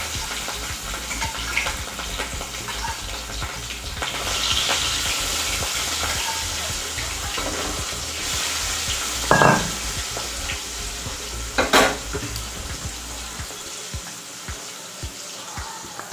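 Fish frying in hot oil in a steel kadai, a steady sizzle. A metal spatula stirs and turns it, knocking sharply against the pan twice, about nine and twelve seconds in.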